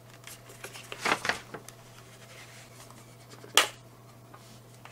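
Hard plastic casing of an Airthings Wave radon detector handled in the hands: light scrapes and rubs about a second in, then one sharp click about three and a half seconds in.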